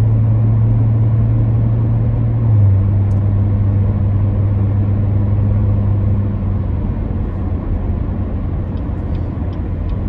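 Supercharged 6.2-litre LT4 V8 of a 2019 Corvette Z06 heard from inside the cabin while driving slowly: a steady engine drone that dips slightly in pitch about two and a half seconds in, then eases off after about six seconds, leaving mostly tyre and road noise.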